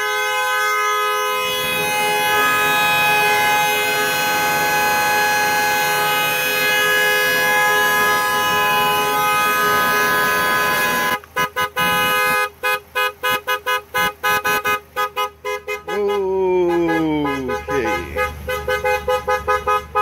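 Dodge Nitro's two-tone horn blaring continuously, stuck on, a symptom the video puts down to a faulty TIPM. About halfway through it starts cutting in and out rapidly as the battery terminal is worked. Near the end its pitch sags downward before it stutters again.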